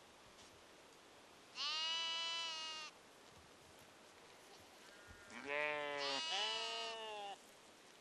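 Sheep bleating: one long bleat about one and a half seconds in, then two overlapping bleats, one lower-pitched, from about five seconds in.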